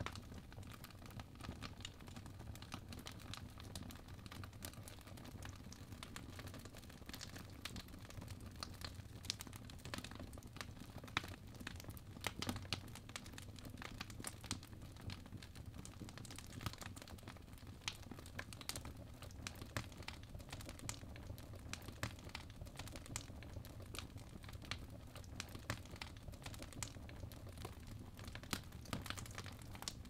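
Fireplace fire crackling: a steady stream of irregular small pops and snaps, a few louder than the rest, over a low steady rumble.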